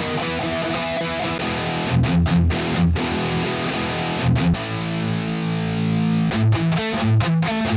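Synthwave-style music: a drum beat under a distorted, sustained melodic part, with the backing shifting to longer held low notes a little after halfway.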